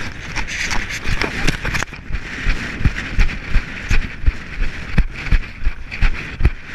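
Footsteps of a runner on a stony, grassy mountain path, thudding evenly about three times a second, with a steady hiss behind them.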